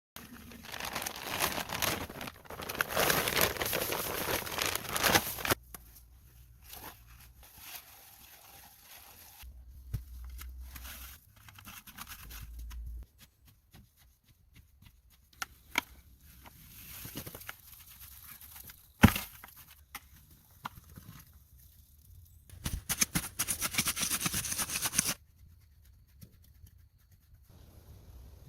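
Hand work on the cabin's foundation: scraping and rustling noises with scattered clicks, and one sharp knock about nineteen seconds in.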